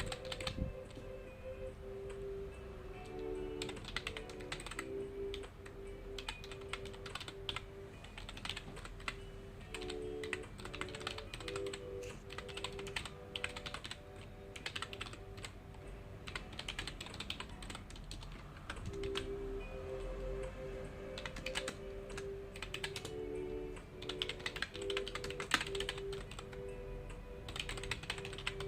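Computer keyboard typing in irregular bursts of quick key clicks, with pauses between runs. Soft background music of held notes plays underneath.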